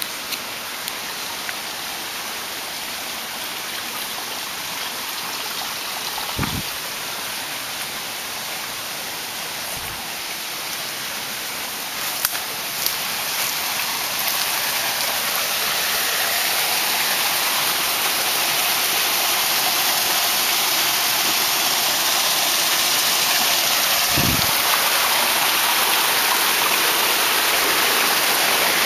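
A bush stream rushing over rocks: a steady hiss of running water that grows gradually louder from about halfway through. Two soft low thumps break in, one about a quarter of the way in and one near the end.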